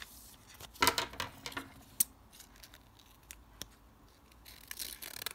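A small handmade paper packet being handled and opened: scattered paper rustles and sharp clicks, the sharpest about two seconds in.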